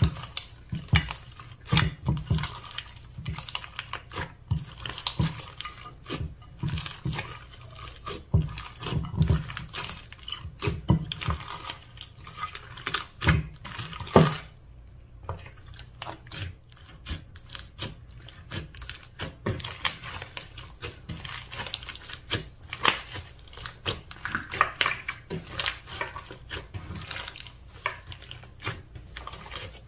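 Slime being mixed and squished by hand, giving a dense run of irregular clicks and pops that stops briefly about halfway through.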